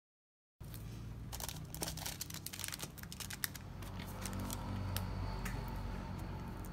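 Close handling of paper and cards: tissue paper rustling and crinkling, with many small clicks and taps as a card and an enamel pin on its backing card are set down. It starts abruptly about half a second in, over a steady low hum.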